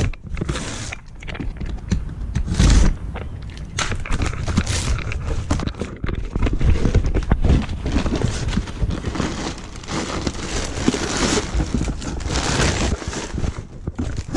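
Cardboard shipping box handled and rummaged through by gloved hands: rustling cardboard and crinkling packing material with scattered clicks, and a loud thump about two and a half seconds in.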